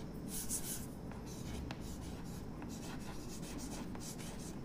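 Chalk writing on a chalkboard: faint scratching and tapping of the chalk strokes as a word is written, with a brighter, higher scratch within the first second.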